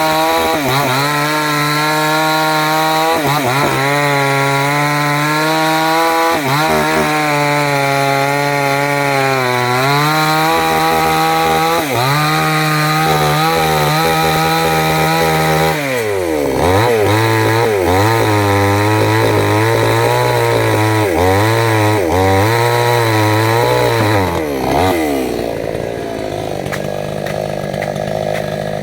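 Two-stroke chainsaw running at high revs, its pitch dipping and recovering again and again as it bogs under load while cutting into jackfruit wood. About halfway through its speed drops and wobbles lower, and near the end it falls to a lower, steadier run.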